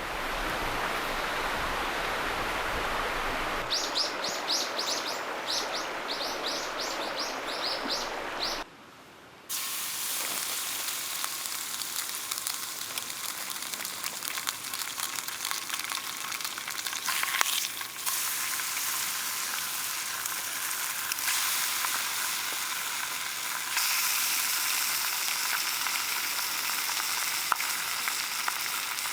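A steady rushing noise with a bird calling in a quick run of high chirps. Then, after a brief break, food sizzling and frying in a pan, with fine crackles.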